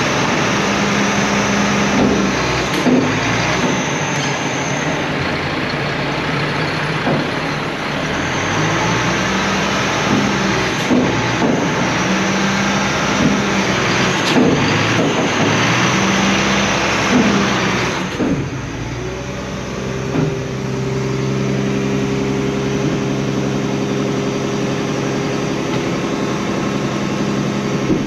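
Garbage truck engine running, with a loud broad rushing noise and a few rises in pitch over it; about two-thirds of the way through the rushing cuts off, leaving the engine running with a steady hum.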